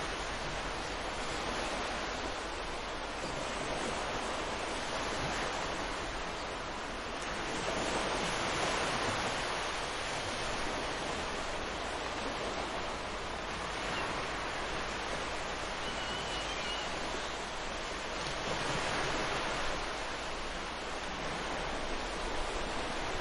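Ocean surf washing in a continuous hiss, swelling as waves break, twice. A faint, brief bird call sounds a little past the middle.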